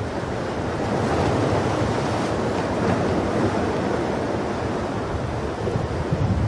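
Ocean surf washing onto a beach: a steady rush of breaking waves that swells slightly about a second in.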